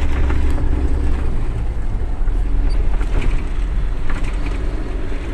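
Truck engine running, heard from inside the cab as a steady low rumble mixed with road noise.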